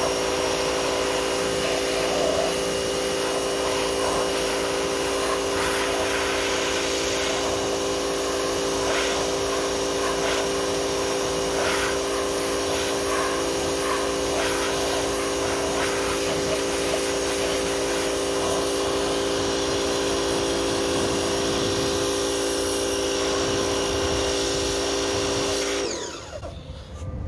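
Pressure washer running with a steady hum, its high-pressure jet hissing as it sprays into a diesel intake manifold to flush out soot; it cuts off near the end.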